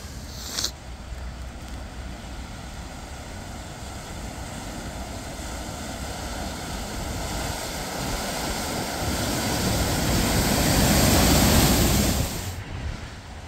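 A car driving through deep floodwater, its tyres and body pushing a wash of water, growing louder as it comes close and passes, then cut off suddenly near the end.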